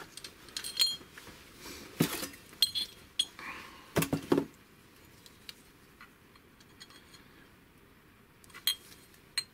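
Aluminium two-stroke scooter pistons and their rings being handled in a polystyrene packing tray: a scattering of sharp metal clinks and knocks, loudest about 2 and 4 seconds in, with two more near the end and quieter handling noise in between.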